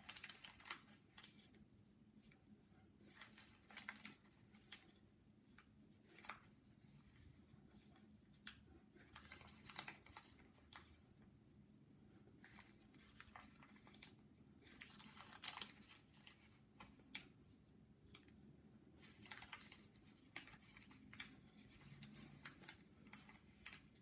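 Origami paper being folded and creased by hand: faint, irregular crackles and rustles in short clusters, with brief pauses between folds.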